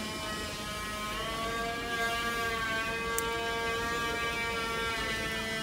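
Train diesel engine running with a steady hum over a low rumble, its pitch dipping and then rising slightly about a second in. A short click near the middle.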